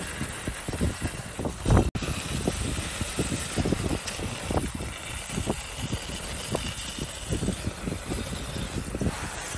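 Low rumbling from the Geldingadalir eruption and its nearby lava flow, with irregular crackles and thuds under a steady hiss. One louder thud comes a little under two seconds in and is followed by a brief cut-out of the sound.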